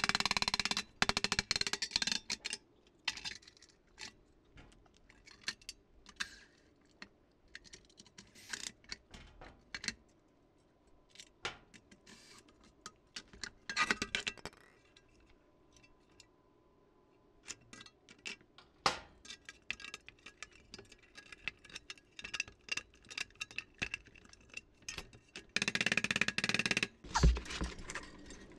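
Scattered light metallic clicks and clinks of a sheet-metal blower housing and hand tools being handled on a steel workbench, with a louder stretch of clatter near the end.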